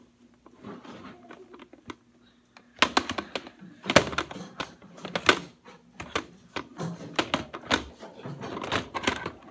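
Plastic toy blaster being handled against a wooden tabletop: a string of irregular knocks and clicks, starting about three seconds in.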